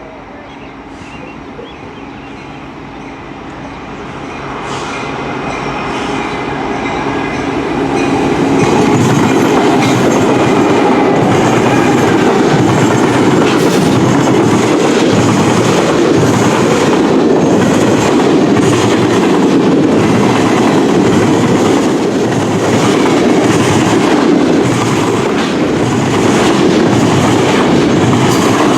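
CN freight train approaching and passing close by. The sound builds over the first eight seconds or so, then holds as a steady, loud rumble of railcars rolling past, with a regular clickety-clack of wheels over the rail joints.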